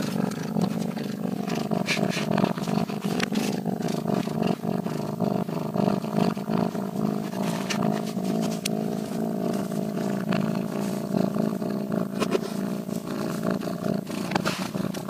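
A cat making a continuous low rumbling sound, steady and unbroken.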